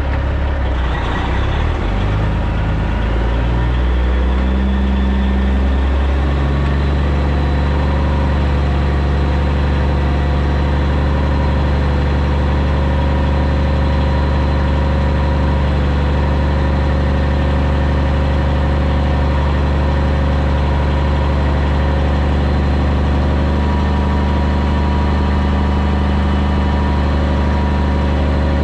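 Caterpillar C15 diesel engine of a Peterbilt 379 semi running at low revs as the truck creeps forward pulling B-train flatbed trailers. The engine note shifts during the first few seconds, then holds steady.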